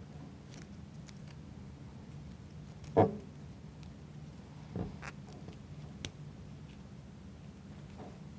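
Small laser-cut plywood model parts clicking and knocking as they are pressed together by hand, with one sharper knock about three seconds in and a few lighter clicks after it, over a low steady hum.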